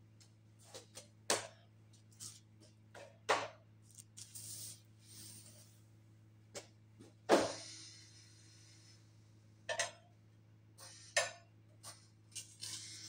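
Hydraulic power unit of a homemade press brake humming steadily, with scattered knocks and clatter of a steel sheet being handled and set against the press tooling. The loudest knock comes about seven seconds in.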